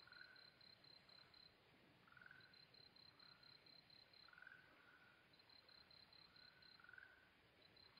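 Faint night chorus of insects and frogs. A cricket gives high, evenly pulsed trills of about five pulses a second in runs of roughly two seconds, repeating every few seconds, over short rising frog calls about once a second.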